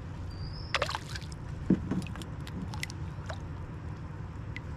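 Knocks and light clicks as a collapsible crab pot's steel rings and netting are handled over the side of a kayak, the loudest knock about two seconds in, over a steady low rumble. A short high whistle sounds near the start.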